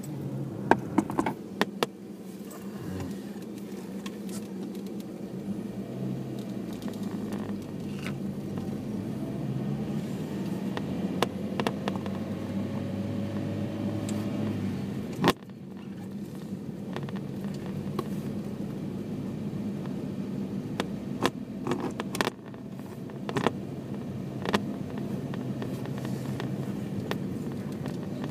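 Car engine hum and road noise heard from inside the cabin while driving, with the engine tone rising slowly for several seconds in the middle. A few sharp clicks and knocks break in, near the start, about halfway through, and again a few seconds later.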